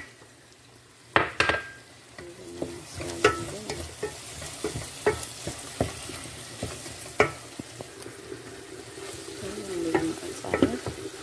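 Wooden spoon stirring a frying mixture of onions, berbere and freshly added chopped garlic in a stainless steel pot. Over a soft steady sizzle the spoon knocks against the pot every second or two.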